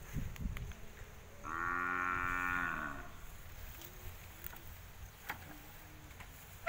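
Carabao (water buffalo) giving one moo about a second and a half long, starting about a second and a half in and dropping in pitch as it ends.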